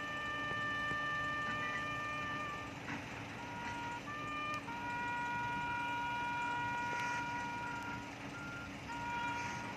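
Trumpet sounding a slow military funeral bugle call: a few long held notes, with shorter notes between them where the pitch changes.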